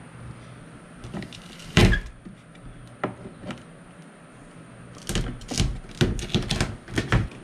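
Handling noise from fitting a plastic storage box with Velcro: one loud knock about two seconds in, a few scattered clicks, then a quick run of clicks and rustles near the end.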